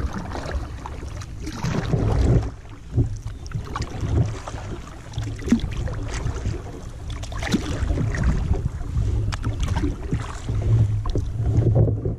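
Kayak being paddled: water splashing and sloshing at irregular intervals as the paddle blades dip, over a steady low rumble of wind buffeting the microphone.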